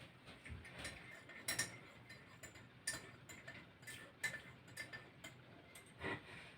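A bird pecking at frozen scraps of bread and lard rind in the snow: faint, irregular taps, about a dozen.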